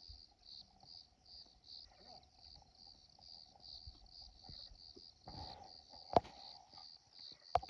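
A cricket chirping steadily, about two and a half high chirps a second, with a faint steady hum underneath. A sharp click about six seconds in and another near the end.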